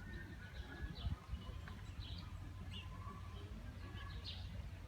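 Birds chirping: scattered short, high chirps and a few held whistled notes over a steady low background rumble, with one sharp click about a second in.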